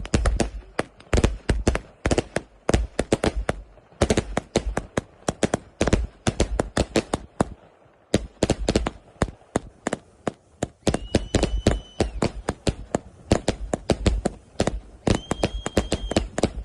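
Funke SulphurCrown firework going off in a rapid, irregular string of sharp bangs and cracks, with a short break about halfway through. A brief steady whistle sounds twice in the second half.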